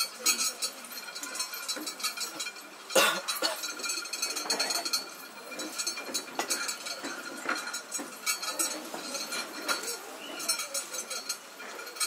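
Metal clinking and jingling in short, irregular clatters, with one louder clash about three seconds in, over faint background voices.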